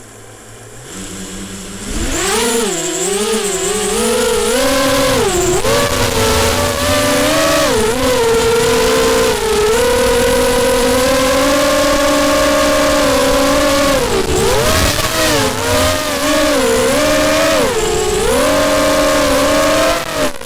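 Racing quadcopter's brushless motors (Cobra CM2204 2300KV) spinning DAL 5045 bullnose propellers, heard from the onboard camera. The buzzing whine comes up about two seconds in as the throttle opens, then swings up and down in pitch with the throttle, with a few brief dips.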